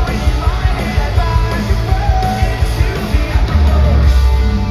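Post-hardcore band playing live at full volume: rapid kick drum hits under distorted guitars and vocals, with a heavy sustained bass note about three and a half seconds in.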